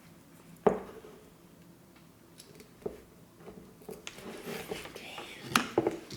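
Small parts of an electrical plug being handled: a sharp click or knock about a second in, a lighter one a couple of seconds later, then rustling and scraping with a few more clicks in the last two seconds.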